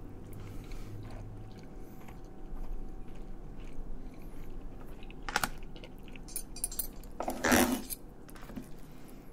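Chewing a mouthful of spaghetti, with a knife and fork clinking and scraping against an aluminium foil takeout pan: a sharp click about five seconds in, then a louder scrape of about half a second near the end.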